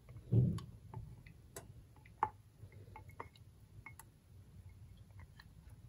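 Silicone spatula scraping thick mayonnaise out of a glass measuring cup into a stainless steel bowl: a soft thud about half a second in, then scattered light clicks and squishes.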